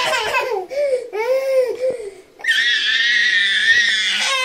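Toddler girl crying: a string of short wails that rise and fall, then, about two and a half seconds in, one long high-pitched shriek.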